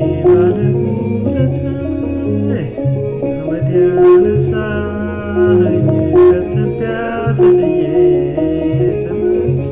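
Music played on plucked string instruments over a repeating low bass pattern.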